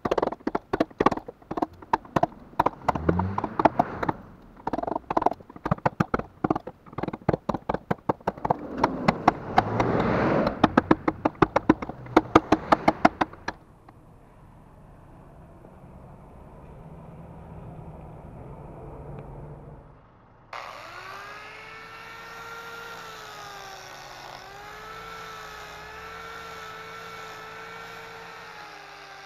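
Wood-carving chisel being struck into hardwood in rapid taps for about the first half. After a quieter stretch, an angle grinder with a sanding pad starts abruptly about two-thirds of the way in and runs steadily, its pitch dipping slightly as it is pressed onto the wood.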